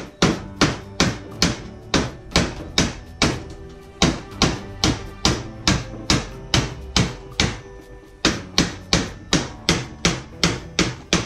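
Hammer blows on a thin, bent sheet-metal strip laid on a wooden bench, beating it straight into a reinforcing rib. The strikes come steadily, about two to three a second, with a brief pause about three-quarters of the way through before they start again.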